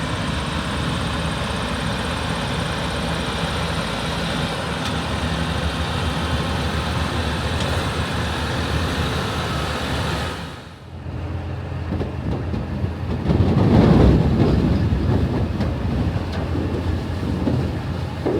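Heavy harvesting machinery running steadily. A little past halfway the sound drops out briefly and gives way to a different machine sound, which grows louder a few seconds later.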